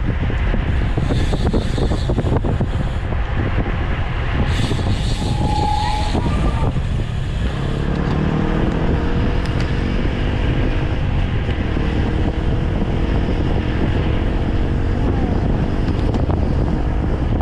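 Heavy wind noise buffeting the microphone of a road cyclist riding into a strong wind. From about halfway, a motor vehicle's engine joins in with a slowly rising pitch.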